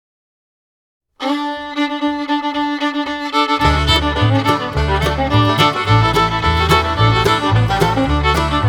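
Silence, then instrumental background music starts abruptly about a second in, with a bass line joining a couple of seconds later.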